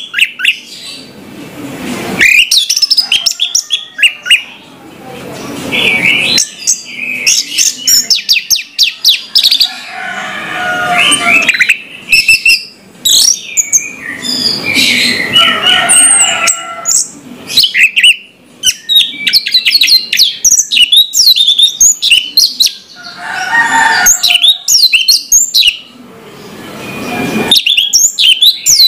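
Orange-headed thrush singing loudly: rapid, varied phrases of chirps and whistles, broken by short pauses every few seconds.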